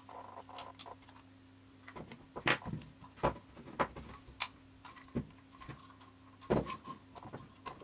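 Hands working apart the plastic and metal parts of a Mobira/Nokia Cityman 150 brick phone to take off its display: scattered clicks, knocks and small scrapes, the sharpest about two and a half and six and a half seconds in, over a faint steady hum.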